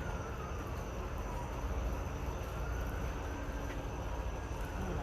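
A distant siren wailing faintly, its pitch sliding slowly down and then back up, over a steady low rumble.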